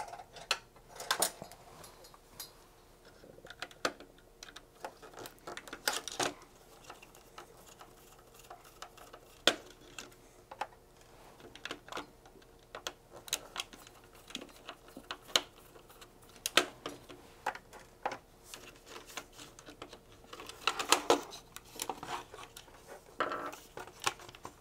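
Irrigation controller's plastic case and circuit boards handled during disassembly: scattered small clicks, taps and rattles, with a few louder knocks.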